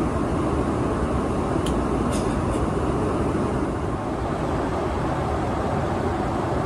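Steady airflow and engine noise inside a Boeing 777 airliner cabin in flight, an even rumble and hiss. A few faint light clicks about two seconds in.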